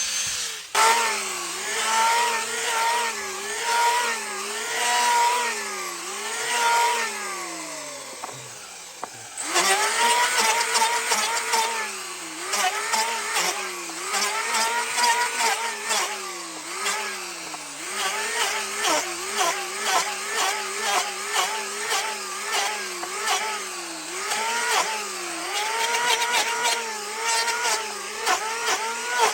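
Power tool motor working wood, its pitch dipping and recovering about once a second as it takes each cut, with crackling on top. It stops briefly about nine seconds in, then resumes the same rhythm.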